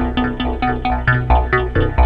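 Instrumental music with a quick, steady pulse of repeated notes, about six a second, over a sustained bass line.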